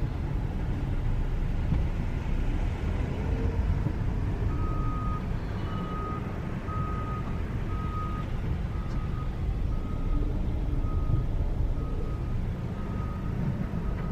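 Motor vehicle running with a steady low rumble, and a short high electronic beep that starts about four seconds in and repeats about once a second.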